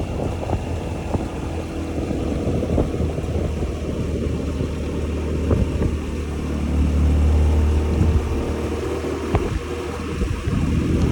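Honda Zoomer 110 scooter's small single-cylinder engine running on the move, with wind noise on the microphone. The low engine rumble swells for a couple of seconds about two-thirds of the way through, then settles back.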